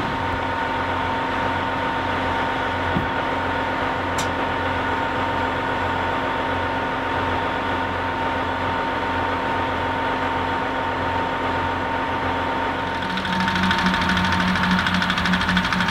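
John Deere 8500i self-propelled forage harvester running steadily: an engine hum with a constant high whine over it. About thirteen seconds in the sound grows louder and hissier.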